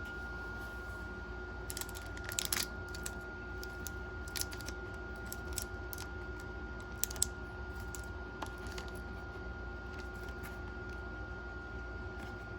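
Packaging and a boxed magazine set being handled while unboxing, with scattered light clicks and rustles, the loudest cluster about two seconds in. A faint steady high tone runs underneath.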